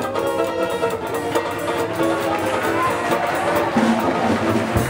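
Background music throughout, breaking off abruptly just before the end.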